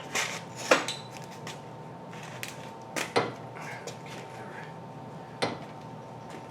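A few sharp metal clanks and clinks of steel tools on a ball joint press, spaced irregularly, the loudest about three-quarters of a second in.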